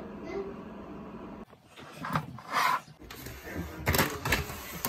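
Handling noises: a few short rustling and knocking bursts as items are moved and set down on a countertop.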